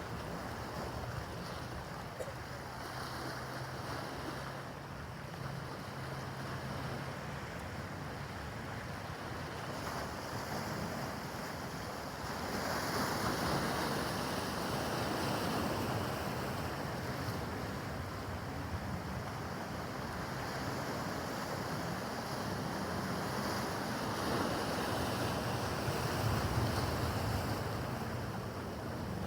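Choppy harbor water washing and slapping, with wind buffeting the microphone; it grows louder about twelve seconds in. A faint low steady hum runs through the first several seconds and comes back near the end.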